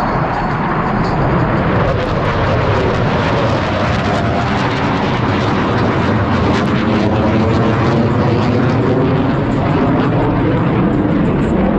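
Roar of the jet engines of the Blue Angels' F/A-18 Super Hornets flying past, loud and continuous, with a slowly sweeping, shifting tone.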